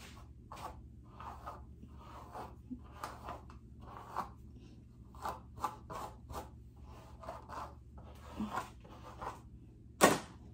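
Hairbrush bristles dragging through thick curly hair in a quick, irregular run of short scratchy strokes. A sharp click near the end is louder than the strokes.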